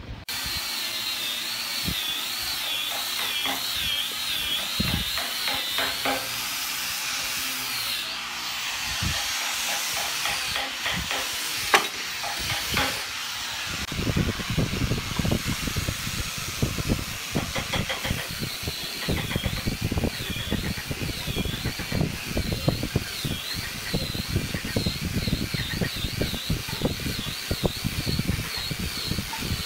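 Steady background hiss with a high, wavering whistle that comes and goes. About halfway through, many short, irregular low knocks and rustles join in.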